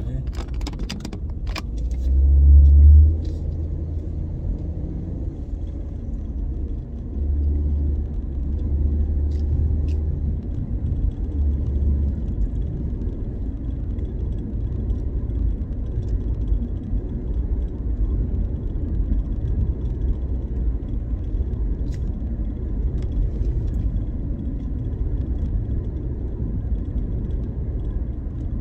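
Steady low road and engine rumble inside a moving car's cabin, with a few sharp clicks near the start and heavier low rumble swelling briefly about two seconds in and again from about seven to twelve seconds.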